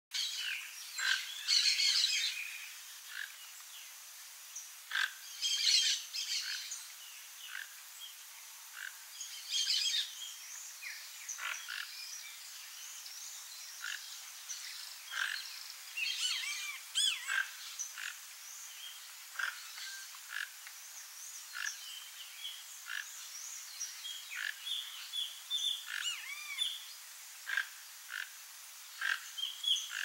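Many short chirps and calls of wild birds, separate notes and quick clusters, with the loudest flurries about two, six and ten seconds in.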